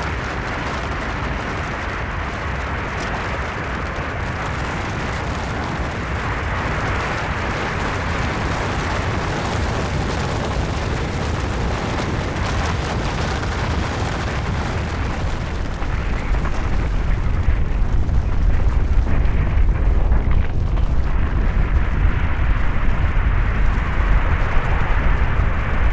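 Snow and rock avalanche: a continuous rushing noise of sliding snow and rock over a deep rumble. The rumble grows louder and heavier about two-thirds of the way through.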